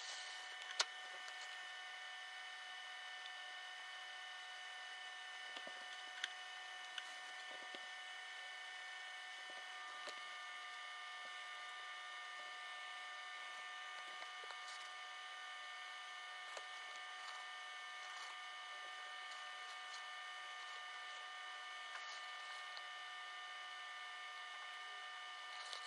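Quiet room tone with a steady high electrical whine at several fixed pitches, broken by a few faint ticks, the sharpest about a second in.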